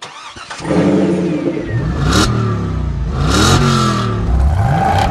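A car engine revving, its pitch climbing three times and falling away in between, with a short rushing whoosh about two seconds in and another around three and a half seconds in.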